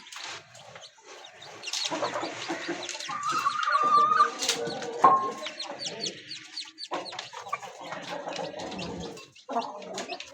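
Aseel chickens calling: many short, high chick peeps over lower clucking, with a longer wavering call about three seconds in.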